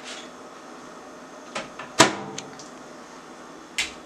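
Several short clicks and knocks from things being handled, the loudest a clunk about two seconds in that rings briefly, over a steady room hum.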